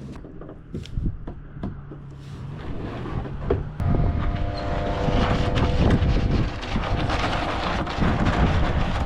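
A motor vehicle running, with scattered knocks and clicks, then a louder rough rumble sets in about four seconds in.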